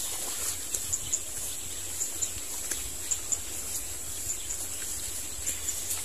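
Outdoor ambience: a steady high-pitched drone with short high chirps scattered through it, over a low rumble.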